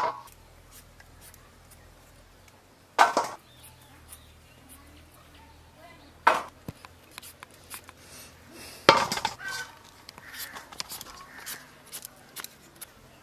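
Pieces of cut vegetable dropped one by one into a stainless-steel bowl, three sharp metallic clatters a few seconds apart, with faint scraping of peeling and trimming in between.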